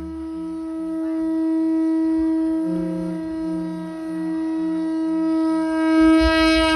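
Isan band music: a reedy wind instrument holds one long steady note, with a lower note pulsing about three times a second beneath it.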